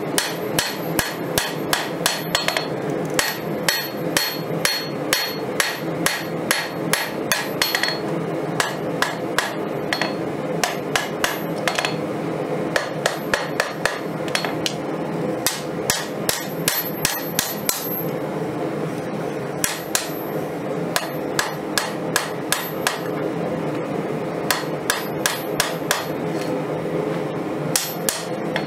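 Hand hammer striking a red-hot 5160 leaf-spring steel Bowie blade on an anvil: quick blows at about three a second, each with a ringing anvil tone, in several runs broken by short pauses. A steady hum runs underneath.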